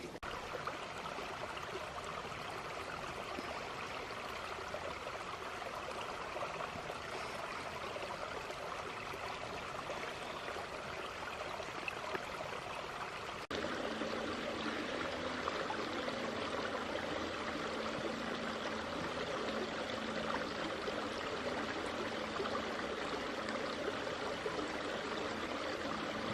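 Small rocky forest creek running, a steady rush of flowing water. About halfway through it jumps suddenly to a louder, fuller rush.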